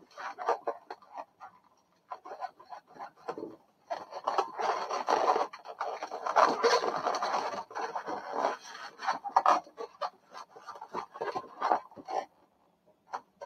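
Long latex modelling balloons rubbing against each other and against the hands as they are twisted and woven together, in irregular bursts that are densest in the middle and stop briefly near the end.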